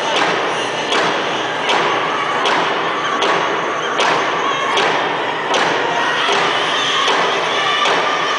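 Several powwow hand drums beaten together in a steady beat, about four strokes every three seconds, with a group of men singing over them.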